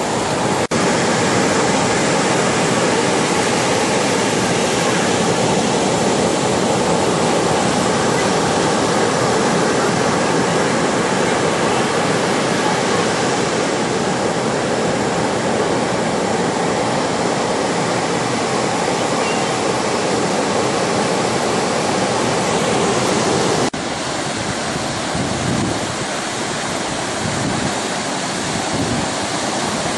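Ocean surf: waves breaking and washing in a steady rush of noise. It drops a little quieter at a sudden change about 24 seconds in.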